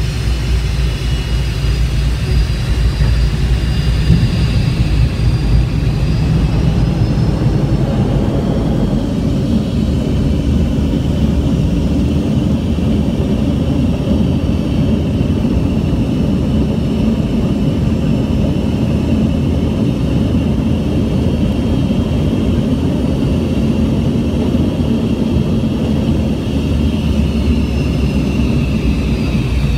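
MD-88's rear-mounted Pratt & Whitney JT8D turbofan engines heard from inside the cabin: a loud, steady rumble with a high engine whine on top. The whine falls in pitch over the first several seconds and again near the end.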